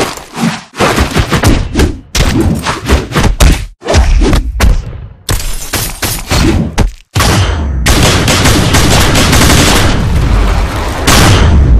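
Fight sound effects for a stick-figure animation: a dense, rapid string of sharp hits, slashes and thuds with only short gaps, then a few seconds of continuous loud, dense noise in the second half.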